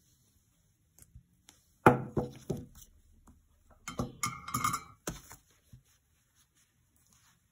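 Knocks and metallic clinks from a third-hand soldering clamp and the freshly soldered pendant being handled and set down on a towel. There is a sharp knock about two seconds in with a few quicker ones after it, then a second cluster around four to five seconds with a brief ring.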